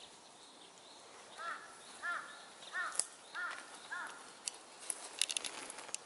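A crow cawing, a run of five short caws a little over half a second apart, starting about a second and a half in. A few short, sharp ticks follow near the end.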